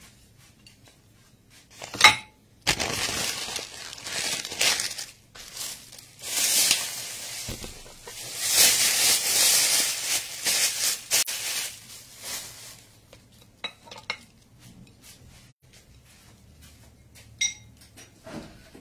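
Dishes being cleared from a table: a ringing clink of crockery about two seconds in, then several seconds of loud, uneven rustling as the paper tortilla bag and a plastic bag are handled, and another clink near the end.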